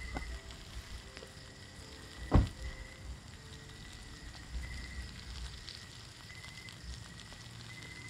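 Fish fillets and asparagus sizzling steadily in a cast-iron skillet over a portable gas burner, with one sharp knock about two and a half seconds in.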